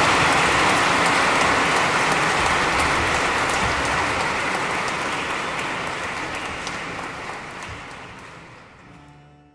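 Audience applauding, a dense patter of clapping that fades out steadily and stops near the end.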